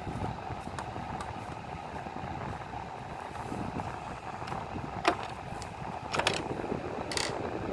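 Steady whir of a room fan, with a few sharp clicks and taps about five, six and seven seconds in.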